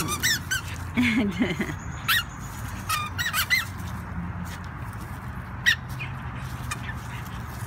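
A dog mouthing a rubber squeaky ball, which gives several short high squeaks at uneven intervals.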